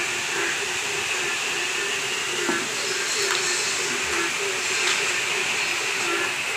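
Heavy rain falling steadily, a constant hiss with no break.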